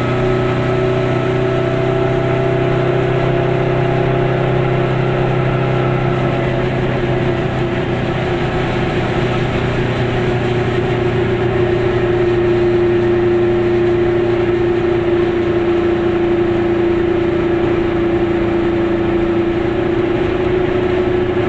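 Car engine and road noise heard from inside the cabin while cruising at a steady speed: a constant drone at one unchanging pitch.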